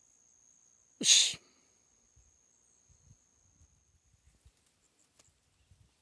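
A single short, loud burst of breath, sneeze-like, about a second in, over a thin steady high-pitched whine that stops a little after four seconds; faint rustling follows.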